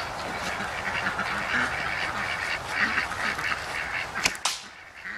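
Bowstring of a traditional bow released about four seconds in, a sharp snap with a second crack just after as the arrow is shot, over birds calling in the background.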